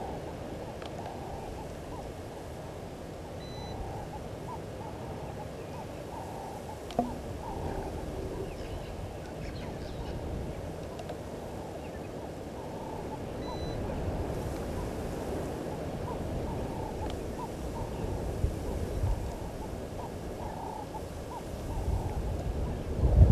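Outdoor waterhole ambience: a steady low rumble with many faint, short bird calls scattered through it, a single sharp click about seven seconds in, and wind rumbling louder on the microphone near the end.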